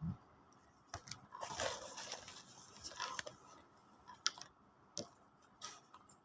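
Handling noise from a sling bag and its packaging: a soft thump, then crinkly rustling for about a second, with several sharp clicks scattered through.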